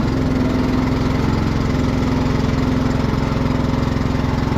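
Fertilizer transfer pump running steadily as it moves liquid nitrogen into the side-dressing tank, with an even, pulsing mechanical hum. The pump is one that sucks air from somewhere at times.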